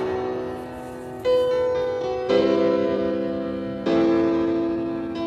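Instrumental backing music: sustained piano chords, with a new chord about every one to one and a half seconds.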